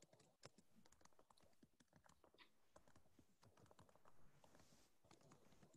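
Near silence, with faint irregular clicks of typing on a computer keyboard.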